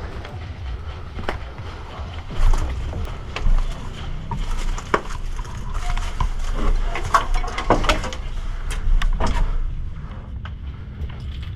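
An airsoft player on the move: footsteps and rustling kit over a low rumble on the microphone, with scattered sharp clicks and knocks, busiest through the middle.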